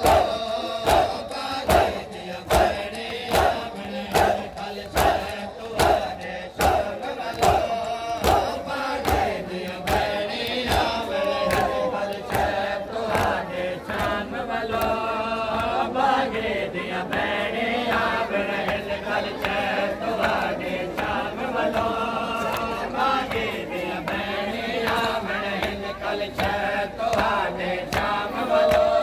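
Crowd of mourners doing matam: sharp chest-beating slaps in unison, about three every two seconds, strongest in the first ten seconds, under men chanting a noha together.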